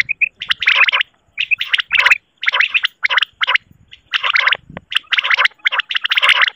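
Recorded quail (batair) calls of the kind played as a hunting lure: short, rapid, rattling gurgled bursts, repeated irregularly a few times a second with brief high blips between them.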